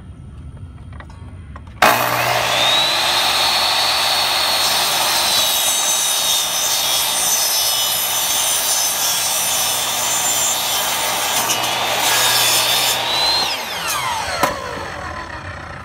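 Electric mitre saw switched on about two seconds in, its motor whine rising and holding as the blade cuts through a rolled roller shade, fabric and tube. Near the end it is switched off and winds down with a falling whine.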